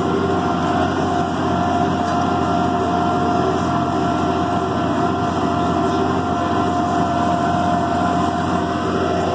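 Case IH 5150 tractor's six-cylinder diesel engine running steadily under load, pulling a reversible mouldboard plough through the soil, with a steady whine above the engine note.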